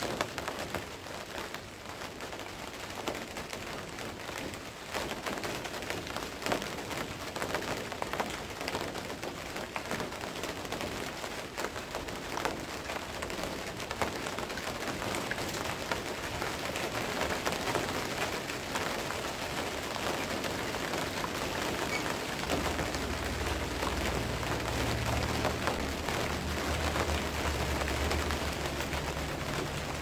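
Steady rain falling, with many separate drops striking close by. About two-thirds of the way through, a steady low rumble comes in under the rain and continues.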